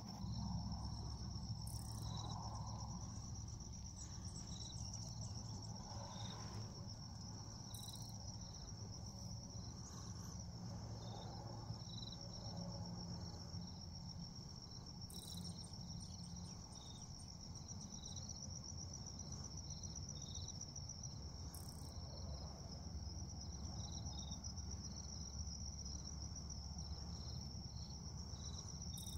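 Crickets trilling steadily in a high, fast-pulsing chirr, with scattered short chirps and a few faint clicks over a low rumble.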